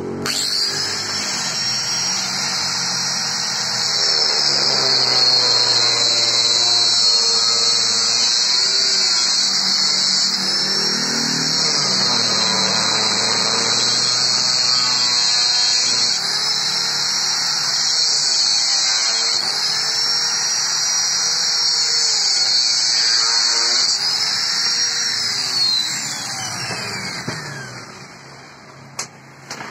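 Handheld electric angle grinder cutting steel with a thin cut-off disc. Its high whine sags and recovers in pitch every few seconds as the disc is pressed into the cut. Near the end it is switched off and winds down with a falling whine.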